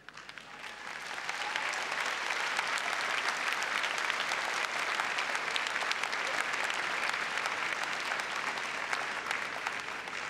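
Large arena crowd applauding, swelling over the first second or so and then holding steady.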